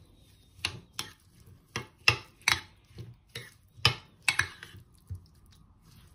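A metal spoon stirring thick yogurt raita in a ceramic bowl, knocking and scraping against the bowl in irregular clinks that turn fainter near the end.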